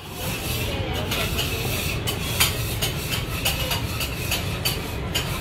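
Busy eatery ambience: a steady din of kitchen and dining noise with frequent sharp clinks of utensils.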